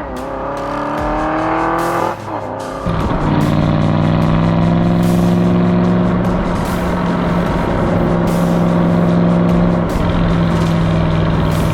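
2008 Aston Martin V8 Vantage's V8 engine revving up in pitch, with a break in the note about two and a half seconds in as if for a gear change. It then holds a steady engine note at constant revs and begins to rise again near the end.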